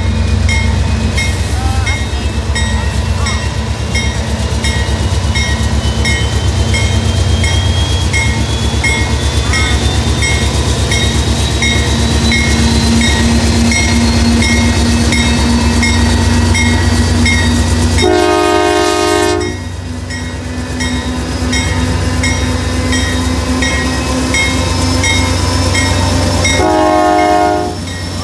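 Steady low rumble of a car travelling alongside a moving freight train. The horn of the GE Dash 9 lead locomotive sounds a chord-like blast about two-thirds of the way in and again near the end.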